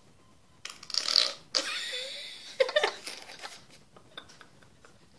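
Air blown through a drinking straw into a lump of slime, sputtering and squelching as it escapes, in several short bursts between about one and three seconds in, then fading away.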